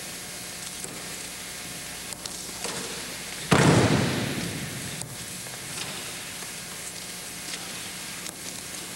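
A loud slap and thud of a body hitting the mat in an aikido breakfall, about three and a half seconds in, dying away over about a second in the gym. Steady hiss underneath, with a few faint taps.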